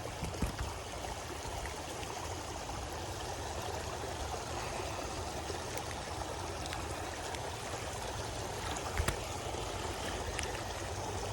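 Creek water running and trickling steadily, with a few brief knocks, the clearest about nine seconds in.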